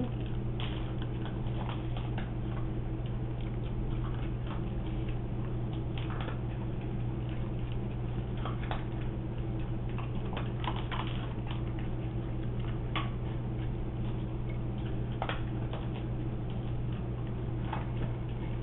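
Dry dog-food kibble clicking in the bowls and crunching as a Shiba Inu eats, heard as irregular small clicks and ticks over a steady low hum.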